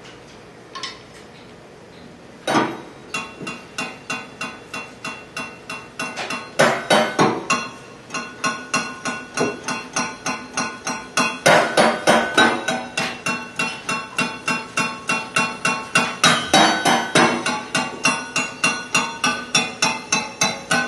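Rapid, evenly repeated strikes on a ringing, pitched instrument, about three to four hits a second, in improvised live percussion. They start about two and a half seconds in after a near-quiet opening and grow louder about six seconds in.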